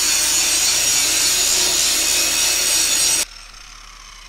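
Angle grinder grinding the steel of a tractor front-linkage headstock, dressing it back before it is tacked and welded. A steady, high grinding noise that stops abruptly about three seconds in.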